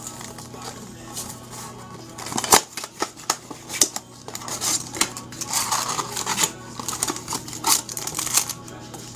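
Basketball trading cards handled by hand: irregular sharp clicks and snaps as cards are flicked and slid against each other, with bursts of paper rustling.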